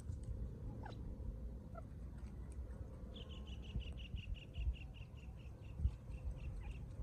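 A bird giving a rapid series of short, evenly spaced notes, about five a second and slowly falling in pitch. It starts about three seconds in and lasts some three and a half seconds, over a low rumble of wind or background noise.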